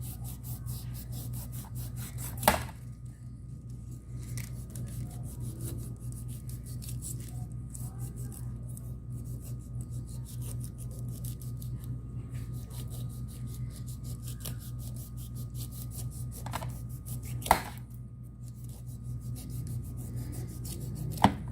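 Knife cutting the rind off a pineapple: a long run of quick rasping strokes through the tough skin, with three sharp knocks spread through it. A steady low hum runs underneath.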